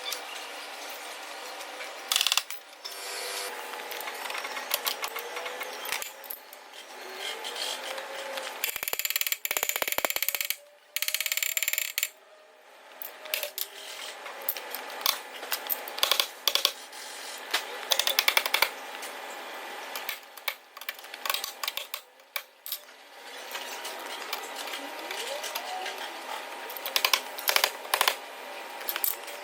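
Workshop tool noise from car body repair: irregular metal clinks, knocks and ratchet-like clicking, with a louder, denser rattling burst about nine to ten seconds in.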